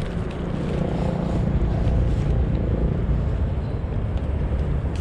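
Low, steady rumble of a boat engine on the river, swelling slightly in the middle as it passes.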